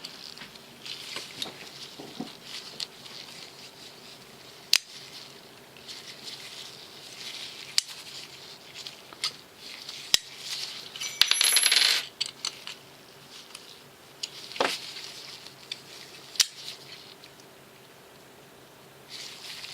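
Sharp metallic clicks and clinks from a flipper folding knife's blade being worked open and closed to test the pivot after adjusting it, with a louder metallic clatter a little past the middle.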